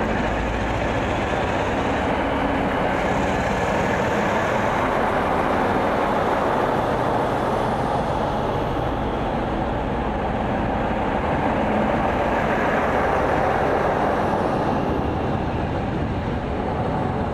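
Two Class 47 diesel locomotives, each with a Sulzer 12-cylinder engine, pulling a train away from the platform: the engines pass close by, then the coaches roll past. The sound is a steady, loud drone with a low hum in the first few seconds.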